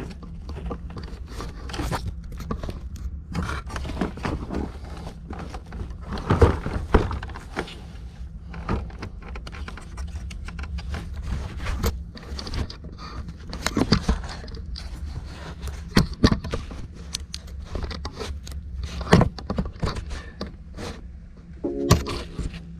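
Hands working wiring connectors and plastic trim under a car's dashboard: scattered plastic clicks, knocks and scraping over a steady low hum.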